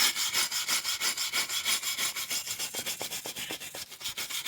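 Rapid back-and-forth scrubbing strokes, about four a second, rubbing grime off a Chrysler 904 automatic transmission case to uncover its stamped ID numbers. The strokes grow fainter toward the end.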